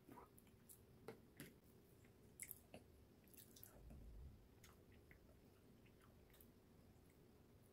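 Near silence with faint, scattered clicks and rustles of a plastic ice cream tub, its lid and a plastic spoon being handled, and a brief low rumble about four seconds in.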